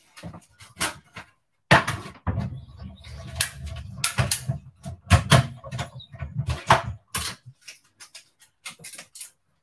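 Hand-cranked die-cutting machine rolling a metal die and card through its plates: a low rumble laced with clicks for about five seconds, starting about two seconds in. Scattered knocks and clatter of tools being handled on the desk come before and after it.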